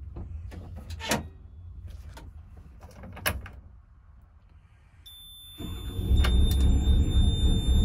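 Hyundai R380LC-9 excavator's diesel engine being shut down and restarted: the engine's rumble dies away with two sharp clicks, then a thin high electronic whine comes on and the engine starts about five and a half seconds in, running loud.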